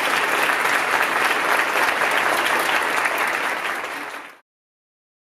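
Audience applauding steadily; the applause dies away and cuts to silence about four seconds in.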